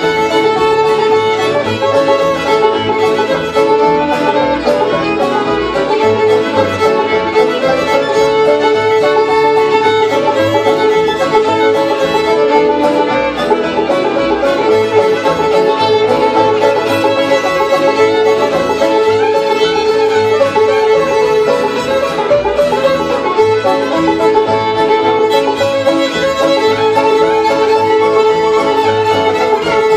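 Acoustic string band playing a Cajun tune: a fiddle carries the melody over strummed acoustic guitar and a plucked upright bass.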